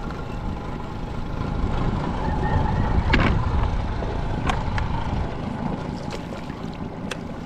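Outboard motor of a fishing boat running steadily under way, a dense low rumble, with a few short sharp knocks, the first about three seconds in.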